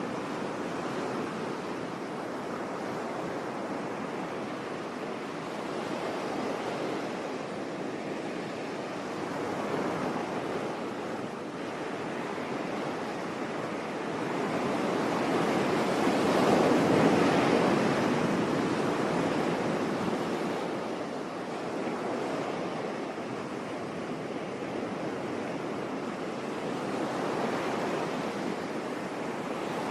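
Sea waves breaking and washing on a beach in slow swells, the largest about halfway through, with some wind noise.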